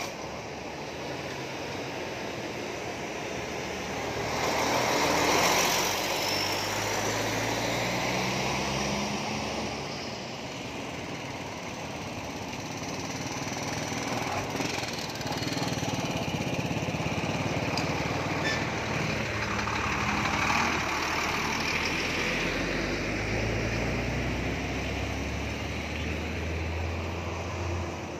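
Highway traffic passing close by one vehicle after another: the engines and tyres of trucks, cars and a motorcycle tricycle. The loudest pass comes about five seconds in, and a deep engine rumble builds near the end.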